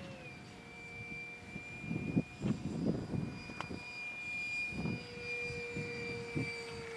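Radio-controlled A-4 Skyhawk model jet flying overhead, its engine giving a steady high whine that drops slightly in pitch at the start. A few bursts of low rumble come through around two to three seconds and again about five seconds in.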